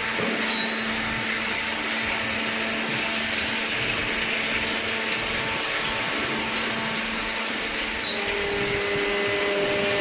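Cardboard baler machinery running: a steady mechanical hum and whine with hiss, and a higher steady tone joining about eight seconds in.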